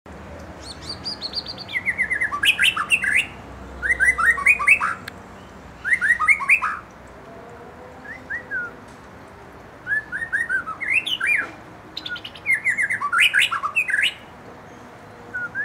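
White-rumped shama (murai batu) singing: bursts of fast, sweeping whistles and chattering notes, about six phrases separated by short pauses.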